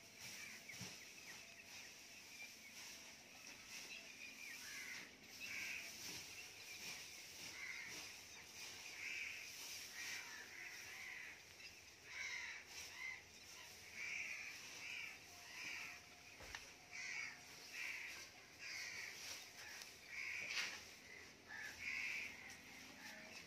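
A bird calling over and over, short calls about one a second that begin a few seconds in, over faint rustling of dry chopped wheat straw being scooped by hand onto a cloth sheet.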